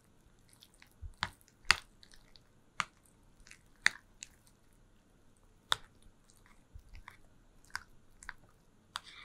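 A utensil stirring a thick cream cheese dip in a bowl: irregular sharp clicks and taps against the bowl, with soft squishing in between.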